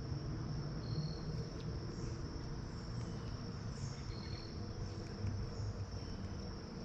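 Steady, high-pitched chorus of crickets trilling, with a low background rumble.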